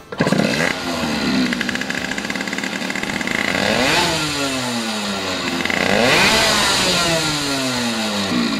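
Small two-stroke motorcycle engine with a Motoplat flywheel ignition running and being revved three times, the pitch climbing quickly and then sinking slowly back down after each blip.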